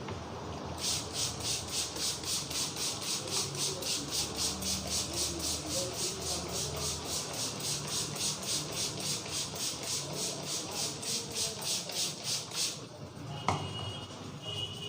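Rapid, rhythmic rubbing of hands over the hair and scalp during a head massage: an even run of swishes, about four a second, that stops suddenly. One sharp click follows shortly after.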